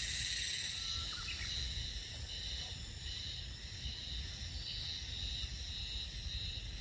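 Outdoor ambience: a steady, pulsing high insect trill over a low rumble, with a faint chirp about a second in.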